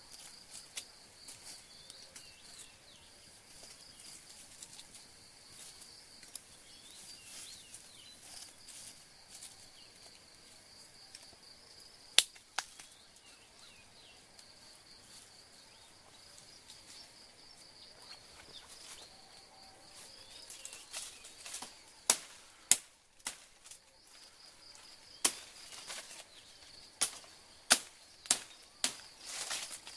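Insects droning steadily at a high pitch, with sharp snaps of dry twigs and stems breaking, once about twelve seconds in and then several in quick succession near the end as a shrub's branches are picked at by hand.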